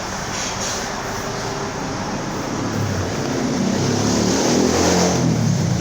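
A motor vehicle engine passing by, swelling in loudness over a couple of seconds and then fading, over steady background noise.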